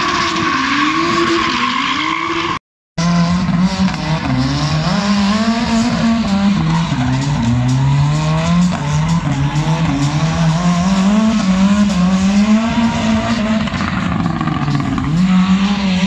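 Drift cars' engines revving up and down as they slide, with tyres squealing and skidding. There is a short dropout to silence about three seconds in, after which a single engine's pitch rises and falls repeatedly through the drift.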